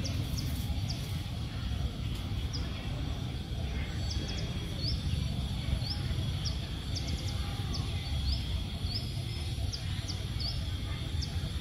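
Outdoor ambience: a steady low rumble, with short high rising chirps from small birds every second or so and a faint steady high tone.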